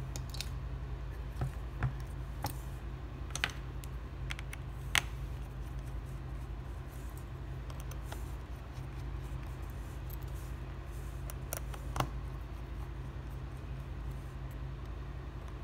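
Scattered small clicks and taps as a precision screwdriver and fingers work on the screws of a Samsung Galaxy A12's plastic midframe. They come mostly in the first five seconds, with two more a little past the middle, over a steady low hum.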